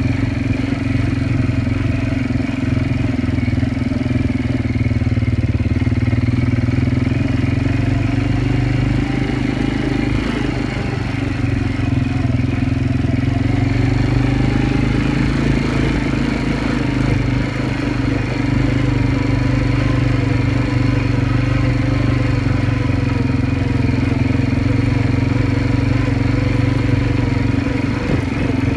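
Quad bike (ATV) engine running steadily under way over sand. The engine note dips briefly about ten seconds in, then climbs again.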